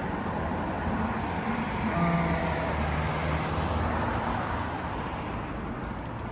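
A strange, rough rumbling noise that swells about two seconds in and slowly eases off; it sounds somewhere between machinery and snoring.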